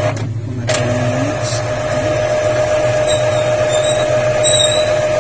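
Epson L5190 ink tank printer running its first-time ink initialization: its mechanism gives a steady, even whine over a low hum. The whine cuts out for about half a second near the start, then resumes.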